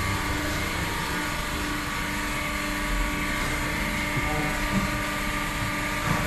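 Diesel fuel-injection pump test bench running steadily: an even machine drone with constant steady tones, the pump being run to check its pressure.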